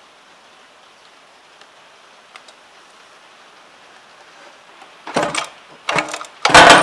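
Recoil pull-starter on a 50cc two-stroke 1/5-scale RC engine, yanked three times in quick succession about five seconds in. Each pull is a short, loud burst of the engine being cranked over in a start attempt, and the third is the loudest. Before the pulls there is only a low steady hiss.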